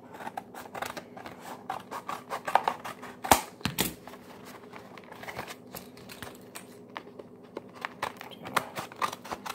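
Scissors cutting open a plastic blister pack and its cardboard backing: a run of sharp snips and plastic crinkles, the loudest two about three and a half seconds in.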